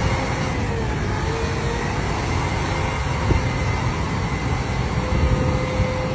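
Engine of heavy earthmoving machinery running steadily, a low rumble with a faint whine that dips briefly in pitch about a second in.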